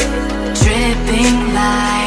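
Background pop music: held chords with a deep drum hit about half a second in, no vocals.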